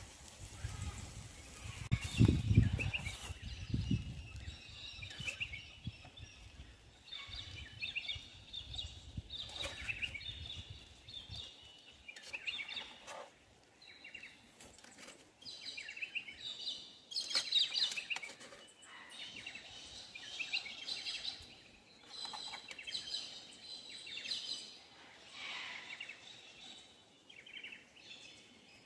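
Wild birds calling and chirping repeatedly in the bush. A low rumble runs under them for the first eleven seconds or so, loudest about two to four seconds in.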